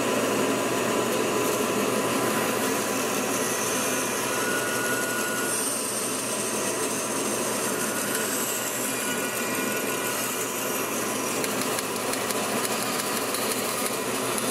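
Bandsaw running and cutting a small basswood blank, with a dust-collector vacuum running alongside in a steady, even noise.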